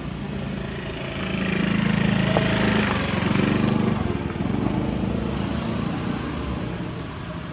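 A small engine running steadily, growing louder from about a second in and easing off after about four seconds. A faint thin high tone sounds near the end.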